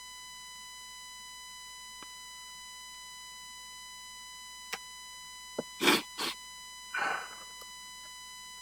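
A steady high electronic tone with overtones runs throughout. About five to seven seconds in come a couple of sharp clicks and then three short loud hissing bursts.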